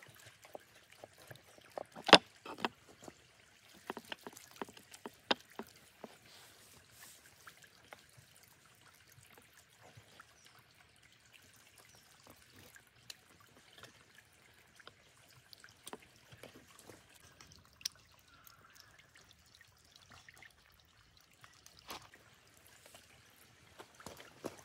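Hand squelching through thick, wet spice marinade, kneading it in a wooden bowl and rubbing it onto a raw leg of mutton: irregular sticky squishes and small smacks, the loudest about two and five seconds in. A faint stream trickles behind.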